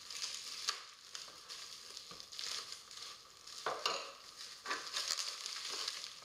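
Black plastic shipping bag rustling and crinkling as it is torn and pulled off a cardboard box by hand, an irregular crackle with a few louder rips.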